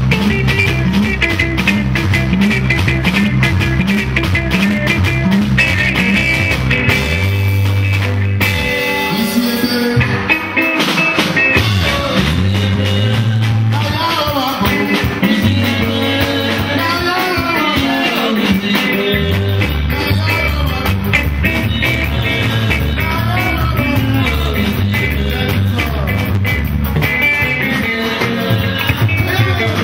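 Live band music: electric guitars and a drum kit over a steady, rhythmic bass line, with a man singing.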